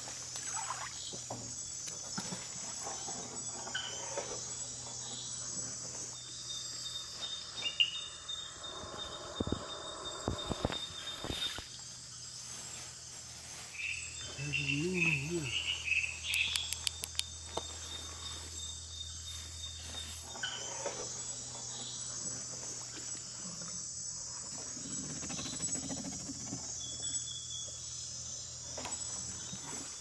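Steady, high-pitched chorus of night insects such as crickets and katydids in rainforest, with a few knocks and short calls about halfway through.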